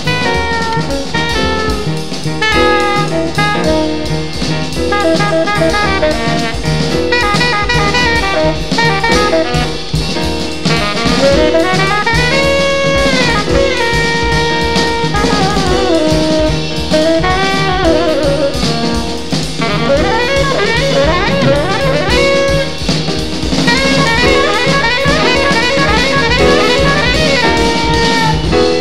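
Jazz quartet recording: a saxophone plays a flowing melodic line with some bent, gliding notes over busy drum-kit playing and the rest of the band.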